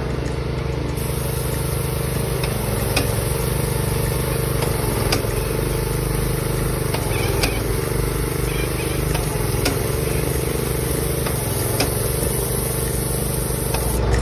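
A motor or engine running steadily, with a few sharp ticks now and then.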